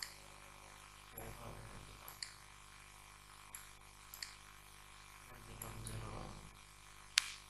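Computer mouse clicking: several sharp single clicks spread out, the loudest near the end, over a low steady hum. There is a faint low murmur about a second in and again past the middle.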